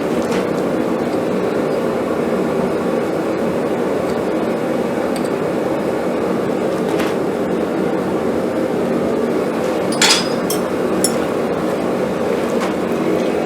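Forge running with a steady roar, with a few short metal clinks and taps of steel being handled. The loudest clink comes about ten seconds in, followed quickly by two lighter ones.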